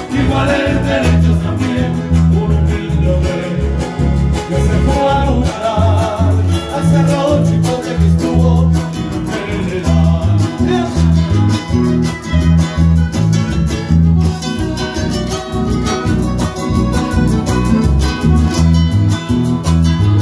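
Live music from a small Nicaraguan folk band: a five-string electric bass, acoustic guitars and a keyboard, over a steady bouncing bass line, with a man singing.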